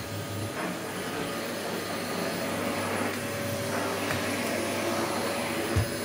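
Hoover Breeze Pets bagless cylinder vacuum cleaner running steadily with a steady whine, its floor nozzle working over carpet. A short thump near the end.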